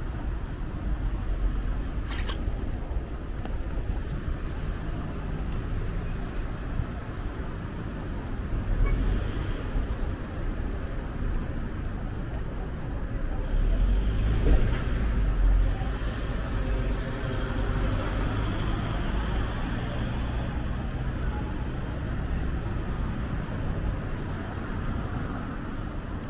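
City street traffic: a steady low rumble of engines and tyres, with louder vehicles passing about eight seconds in and again around fourteen to sixteen seconds in.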